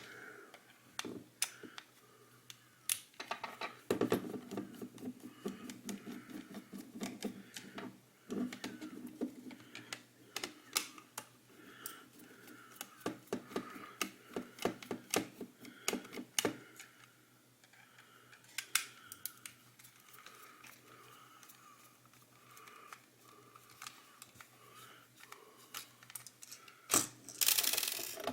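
Small sharp clicks, taps and scrapes of a small screwdriver and the plastic shell and parts of a Delux M618 PLUS vertical mouse being worked apart, with a denser stretch of rattling and scraping early on and a louder burst near the end.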